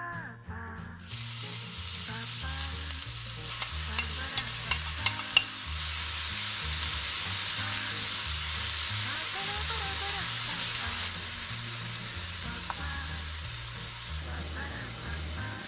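Diced carrot and shredded cabbage sizzling in oil in a small nonstick frying pan, starting about a second in as they hit the hot pan, and stir-fried with a wooden spatula to cook off their moisture. A few sharp clicks sound around four to five seconds in, and the sizzle eases slightly later on.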